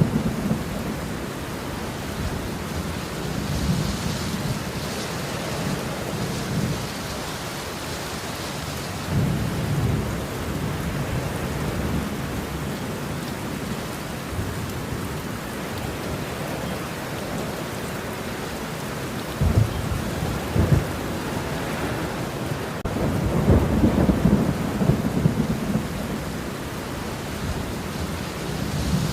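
Steady rain with several rolls of thunder: low rumbles swelling and fading a few times, two short sharp cracks a little past the middle, and a longer roll near the end.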